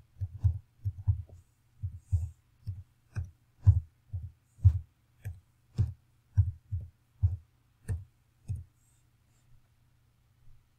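Computer keyboard keys pressed one at a time while numbers are typed into a table: about twenty separate taps, two to three a second, each a sharp click with a dull thump under it. They stop about two seconds before the end.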